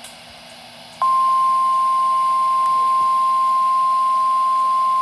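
Emergency alert attention signal: a single loud, steady 1050 Hz warning alarm tone, the kind NOAA Weather Radio sounds ahead of a warning message. It cuts in abruptly about a second in, after faint hiss.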